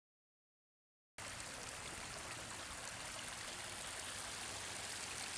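Hot spring water running and trickling over stones, a steady hiss that starts about a second in after silence.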